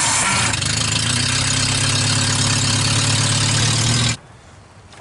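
VW Polo 1.0-litre four-cylinder petrol engine idling steadily with green bubble bath in place of engine oil; the sound stops abruptly about four seconds in.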